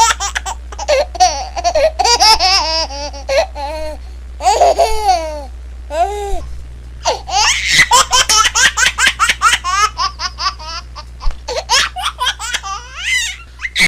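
A baby laughing hard in repeated high-pitched peals and giggles, over a low steady hum that cuts off abruptly at the end.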